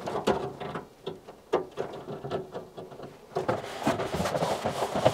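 Light clicks and rattles of wiring connectors and cable loom being handled and pushed home on the tumble dryer. About three seconds in, this gives way to a steadier rustling scrape as the hands move on the steel drum with its newly fitted belt.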